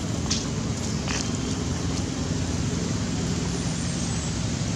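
Steady outdoor background rumble, with a couple of faint clicks about a third of a second and a second in.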